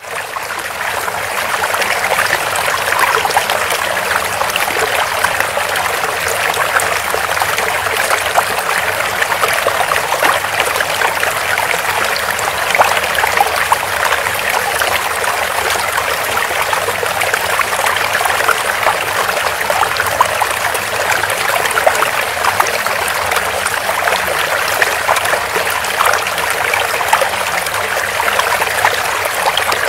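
Steady trickling of running water, like a small stream, with no pauses or changes.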